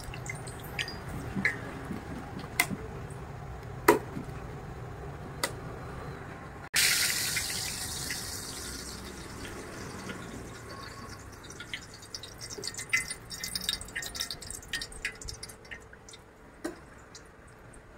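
A hand beats gram-flour batter in a steel bowl, with scattered light taps and squelches. About seven seconds in, hot oil in a large wok starts sizzling sharply as battered tomato slices go in, and the sizzle dies away over a few seconds. Near the end, scattered crackles come as more batter drips into the oil.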